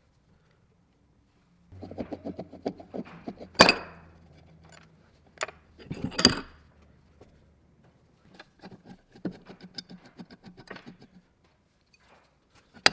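Metal parts of an old electric motor's end housing rattling and clinking as they are handled and worked on with tools, with two loud knocks of metal on a wooden bench.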